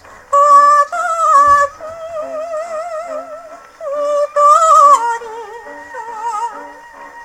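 Victrola J1-50 gramophone playing a 78 rpm shellac record of a Japanese popular song: a melody with heavy vibrato, swelling loudest about half a second to two seconds in and again around four to five seconds in.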